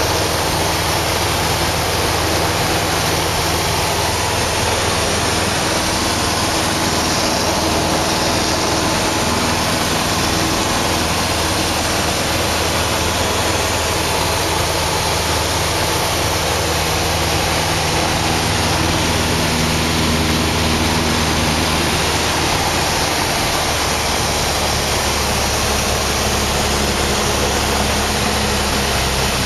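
Cessna 172 in flight heard from inside the cabin: the piston engine and propeller running steadily under a loud, even rush of air noise.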